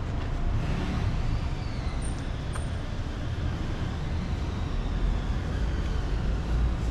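Road traffic on a city street: vehicle engines running past with a low rumble that grows louder near the end. A faint high whine drifts down in pitch partway through.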